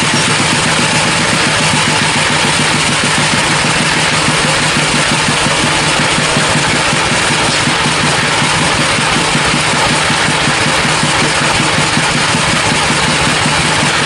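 Band sawmill running steadily with its blade cutting through a redwood log, a continuous machine drone under the hiss of the saw in the wood.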